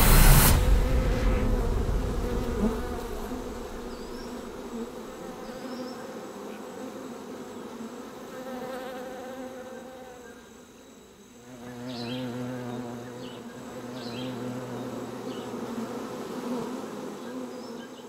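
Honeybees buzzing around a hive, a steady many-winged drone that rises and falls in strength. A loud whoosh at the very start fades away over the first couple of seconds.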